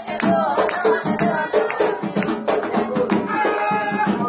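Voices singing a ritual chant (ponto) over drums keeping a steady beat.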